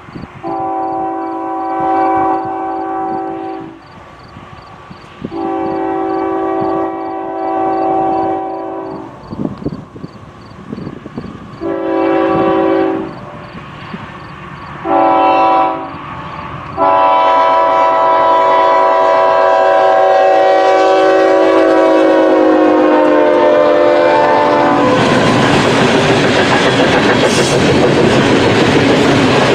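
Diesel locomotive's multi-tone air horn sounding a crossing signal: two long blasts, two shorter ones, then one long blast held about eight seconds whose pitch drops as it goes by. After that the train passes close with loud, steady rumble and clickety-clack of wheels on rail.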